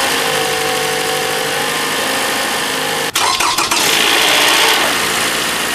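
Toyota Camry 2.5-litre four-cylinder engine running just after start-up with its VVT oil filter cleaned. About three seconds in, the same engine starts again as it ran with the filter clogged, with a brief cold-start rattle before settling to idle.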